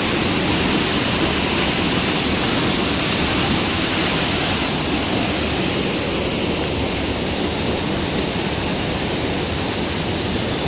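Canal water rushing and churning through a brick channel at a water-powered flour mill, the flow whose pressure drives the millstones; a loud, steady rush with no breaks, easing slightly toward the end.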